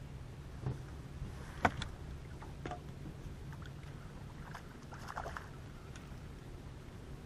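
Scattered light knocks and clicks from fishing gear and the boat as a hooked fish is reeled in alongside. The sharpest knock comes about one and a half seconds in, and a cluster follows near five seconds, over a faint steady low hum.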